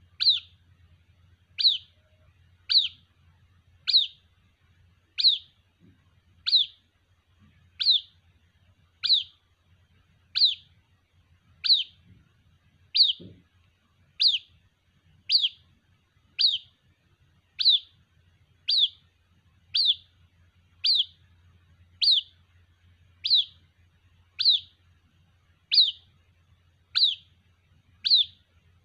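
White-breasted waterhen chick calling for its mother: a short, high peep that falls in pitch, repeated at a very even pace of about one every 1.2 seconds, some two dozen times.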